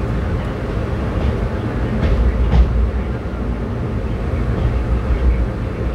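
Express passenger train running, heard from on board: a steady low rumble of the coach's wheels on the rails, with one sharp clack about two and a half seconds in.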